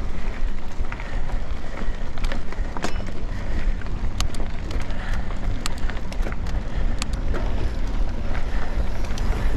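Mountain bike rolling over a dry dirt-and-gravel track: steady wind rumble on the action camera's microphone with tyre noise, and scattered sharp clicks of gravel and bike rattle.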